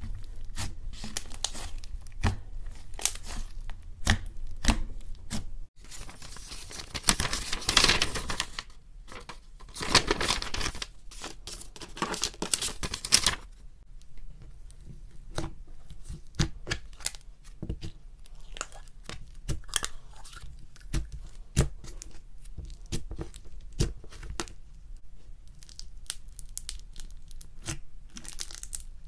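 Hands pressing, stretching and squishing thick fluffy slime: sticky crackling and popping of air pockets, dense in two long stretches in the first half, then sparser pops and clicks.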